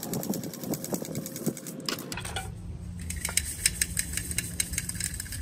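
Crushed ore being shaken in a round 60-mesh metal sieve, the grit rattling and hissing on the screen in a quick, even rhythm. A low steady hum comes in about two seconds in.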